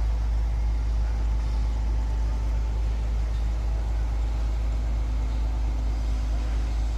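Diesel engine of a heavy mobile crane running steadily under lifting duty, a deep, even rumble.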